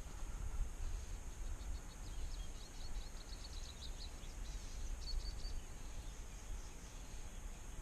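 Wind rumbling on the microphone. A bird sings a rapid trill of short chirps from about two to four seconds in, and a shorter one about five seconds in.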